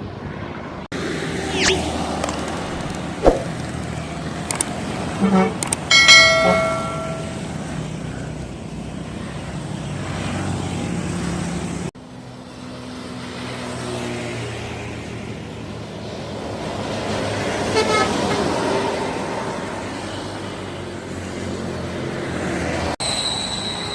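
Buses passing with road traffic noise and sounding their horns in greeting. A short, loud multi-tone horn blast about six seconds in, and a fainter one around eighteen seconds.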